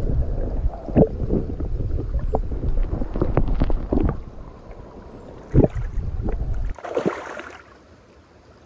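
Muffled rushing and sloshing of river water around a camera held underwater, with several knocks against the camera housing. About seven seconds in it cuts to a much quieter, thinner river flow.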